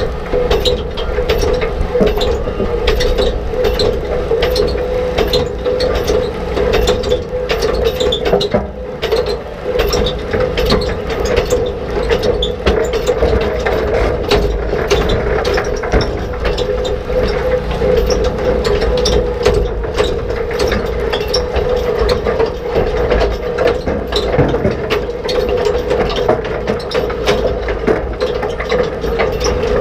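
Old reel-type rock picker at work: its rotating steel tine reel clatters, with rocks and clods knocking irregularly against the steel bars and basket, several knocks a second over a steady mechanical drone.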